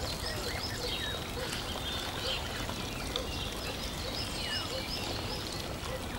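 Birds chirping, many short high calls one after another, over a steady rush of flowing water.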